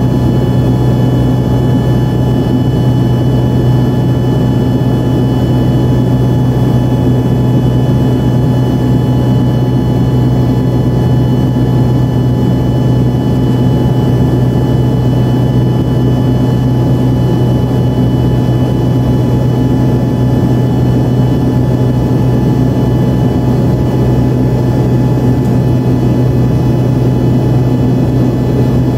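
Embraer 145 jet cabin noise: the steady drone of its turbofan engines and airflow, a deep hum under an even rush, with several faint steady whine tones above it.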